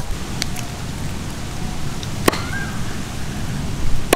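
A cleaver chopping stingray meat on a wooden chopping block, heard as a few separate sharp strikes, the loudest about two seconds in.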